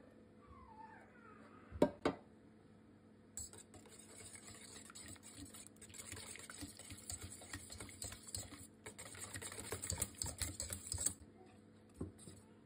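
Wire whisk beating a wet mixture of banana, egg and soy milk in a stainless steel bowl: rapid clinking and scraping of the wires against the metal for about eight seconds. Two sharp knocks come before it and one after.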